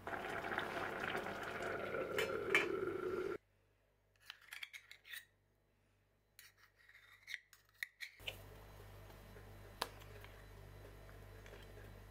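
Kitchen food-prep handling: a rasping scrape for about three seconds, then soft scrapes and small clicks of a spoon against a metal measuring cup and a ceramic bowl as mayonnaise is scooped out. A single click comes near the end.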